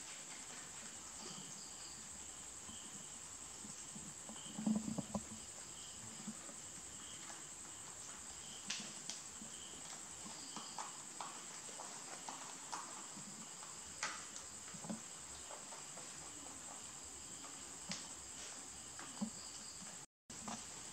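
Rabbits feeding at a plastic tray on a tile floor: scattered light clicks and taps, loudest in a quick cluster about five seconds in. Beneath them run a steady hiss and a cricket chirping at a slow, even rate. The sound cuts out for a moment near the end.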